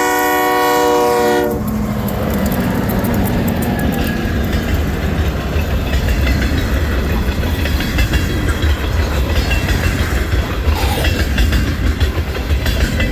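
Great Lakes Central Railroad locomotive's air horn sounding a steady chord that cuts off about a second and a half in, then the low rumble and rattle of the train rolling past.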